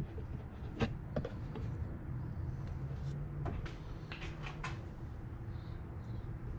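Plastic oil jug and funnel being handled while the last of the oil drains into the engine: several light knocks and clicks, the sharpest about a second in, over a steady low hum.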